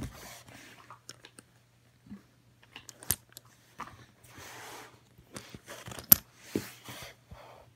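Hands handling a small plastic toy monster truck: rustling and scraping, with several sharp plastic clicks, the loudest about three seconds and six seconds in.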